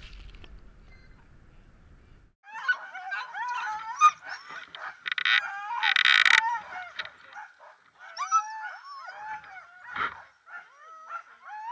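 A team of harnessed sled dogs yelping, whining and howling all at once, many voices overlapping, with a few loud harsh barks about halfway through. This is the excited clamour of sled dogs being hooked up before a run. The dogs start about two seconds in, after a faint low rumble.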